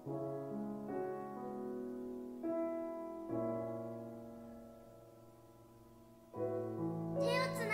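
Grand piano playing slow, quiet chords, each struck and left to ring and die away, with a long fading chord through the middle. Near the end a fresh chord comes in, and a wavering melody line joins it.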